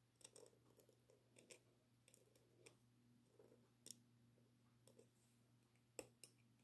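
Faint scratching and small clicks of a metal dip-pen nib on paper as letters are written. Two sharper clicks come close together near the end.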